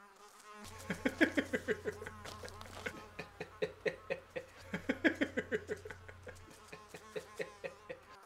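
A man laughing: a long run of quick, repeated chuckles that starts about a second in and goes on for several seconds.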